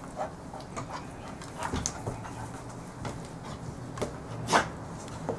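Two dogs play-wrestling on a wooden floor among blankets: irregular scuffling and fabric rustling, with a sharper scuff about four and a half seconds in.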